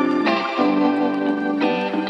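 Instrumental background music, a melody of changing pitched notes with a sliding note near the end.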